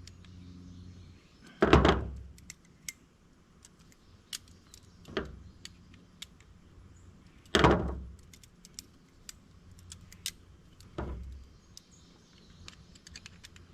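Rocktol 29-in-1 multi-tool being swung and snapped to check that nothing is loose: four sharp metal clacks about 2, 5, 7.5 and 11 seconds in, the first and third loudest, with light clicks and rattles between.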